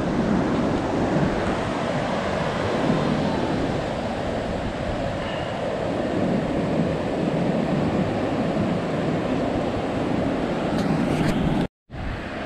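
Pacific surf breaking and washing up a sandy beach in a steady rush, with wind buffeting the microphone. The sound drops out for an instant near the end.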